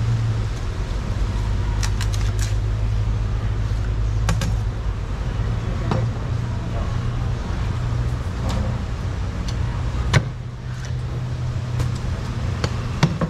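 A steady low machine hum, with scattered light clicks and knocks; a sharper knock comes about ten seconds in.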